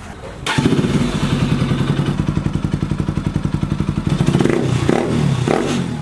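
Bajaj Pulsar NS200's single-cylinder engine running through an aftermarket Apido exhaust whose silencer has been packed with extra fiber, giving a rapid, steady popping beat with a somewhat crisp tone. It starts about half a second in and swells briefly around four and a half seconds in.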